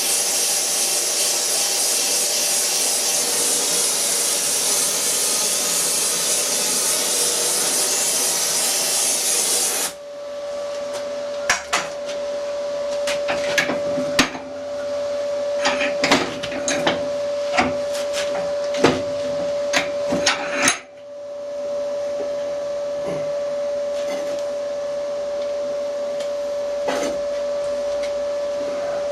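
Workshop sounds: a steady, even hiss for about ten seconds, then a steady machine hum with a run of sharp metal knocks and taps, which thin out to only a few after about twenty seconds in.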